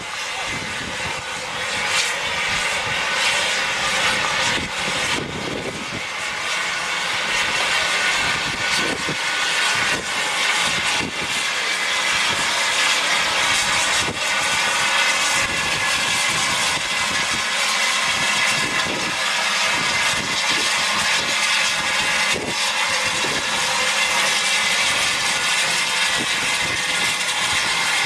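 Steady loud hiss of escaping steam from an Aspinall 0-6-0 tender steam locomotive, with scattered irregular knocks, growing a little louder about a third of the way in.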